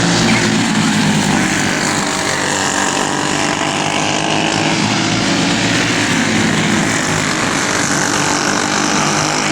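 Briggs & Stratton Animal single-cylinder four-stroke racing kart engines running hard, their pitch rising and falling repeatedly as they rev up and back off.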